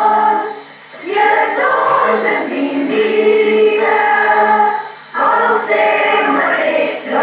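A small group of voices singing a caramelles song together, in phrases that break off briefly about a second in and again about five seconds in.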